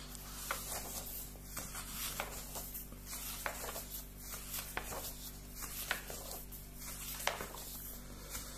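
Pages of a thick comics magazine being leafed through: soft paper rustling with light taps and flicks at irregular intervals, over a faint steady room hum.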